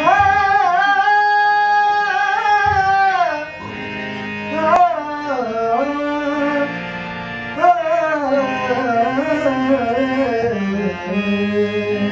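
Qawwali singing: a solo voice holds one long note for about three seconds, then slides through ornamented, melismatic phrases. A steady accompanying drone and tabla sound underneath.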